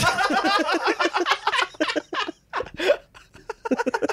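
Three men laughing together, a dense stretch of laughter that trails off after about two seconds into shorter, separate chuckles.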